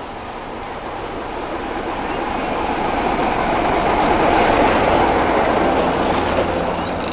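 BR Class 33 diesel locomotive passing close by, its Sulzer eight-cylinder engine and wheels on the rails growing louder to a peak about halfway through and then fading as it goes past.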